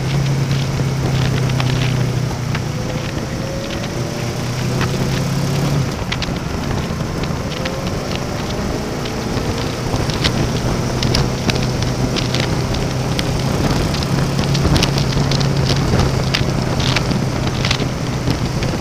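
Motorcycle engine running at a steady cruising speed, heard through heavy wind rush and crackling buffeting on a helmet-mounted camera microphone. The engine note drops away for a few seconds about six seconds in, then comes back.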